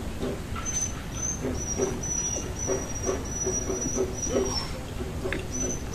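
Short animal cries, two or three a second, with a thin high steady tone above them for about four seconds in the middle.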